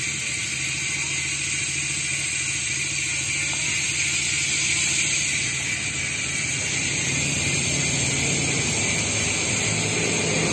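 Strummer MT039 bicycle freehub ratcheting as the rear wheel spins freely: its rapid clicks run together into a steady, wasp-like buzz.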